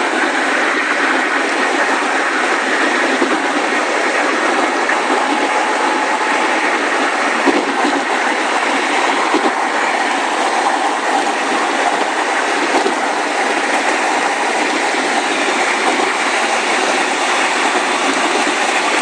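Steady road and wind noise of a car driving at freeway speed, heard from inside the car.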